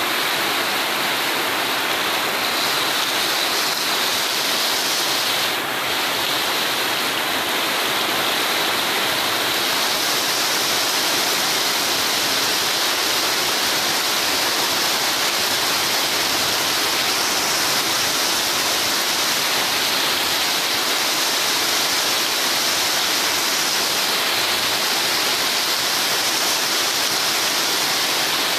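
Heavy rain pouring down steadily onto a waterlogged street: a loud, even downpour.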